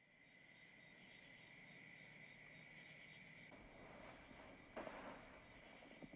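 Near silence: faint room tone with two steady high thin tones, and a brief soft rustle about five seconds in.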